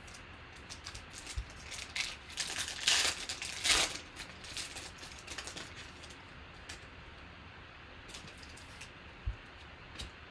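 Crinkling and tearing of a trading-card pack wrapper, loudest in a burst of about two seconds, followed by light rustles and clicks of cards being handled.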